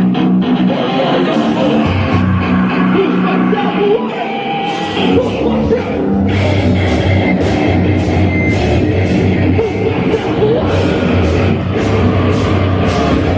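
Nu metal band playing: distorted electric guitars, bass and drums, with yelled vocals. The drums come in with a steady beat about five seconds in.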